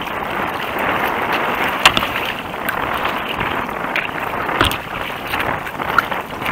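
Choppy wind-against-tide water splashing and slapping against a kayak's bow as it pushes into the waves, with wind on the microphone. Sharp slaps of water hit the hull three times, the loudest about two seconds in.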